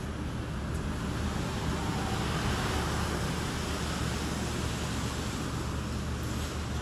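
Street traffic on a wet road: a truck drives past with a hiss of tyres that swells about two to three seconds in and then eases off, over a steady low engine hum.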